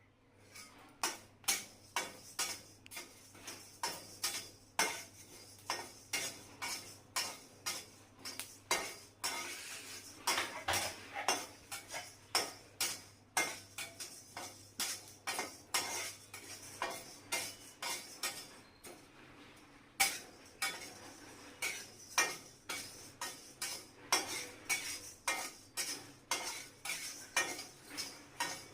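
Food being roasted in a metal pan: sharp clicks and pops about two a second, with a utensil stirring against the pan over a faint sizzle.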